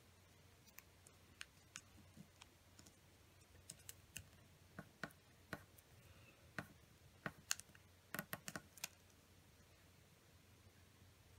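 Small square of origami paper being folded and creased by hand: faint, scattered crisp clicks and crackles of the paper and fingertips pressing folds, busiest in the middle and stopping about nine seconds in.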